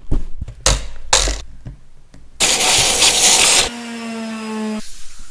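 A few handling knocks, then an orbital sander running against a spruce benchtop for about a second as a loud, even hiss. It is followed by about a second of a steady pitched hum that cuts off.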